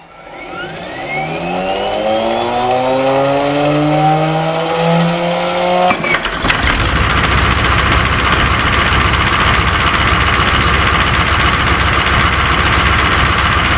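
Cold start of a Guiberson T-1020 nine-cylinder air-cooled radial diesel: a whine rises steadily in pitch for about six seconds as it spins up. It then changes abruptly to a loud, steady, rough running sound.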